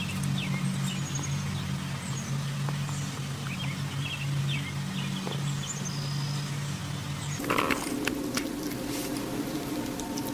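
Small birds chirping over a steady low hum. About seven seconds in, the sound changes to scattered soft wet clicks from a kitten biting at a watermelon wedge.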